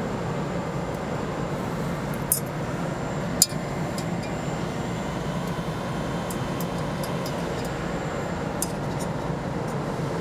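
Light metallic clicks and clinks from the oil line's metal fitting being handled at the punch press turret, two sharper ones about two and three and a half seconds in and fainter ticks later, over a steady low machine hum.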